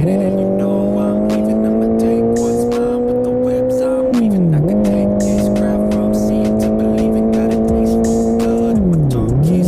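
Honda CBR650R inline-four running through an IXIL full-system exhaust with the dB killer removed, heard from the rider's seat. The engine note climbs slowly, then briefly drops and settles back at a lower pitch, once about four seconds in and again near the end.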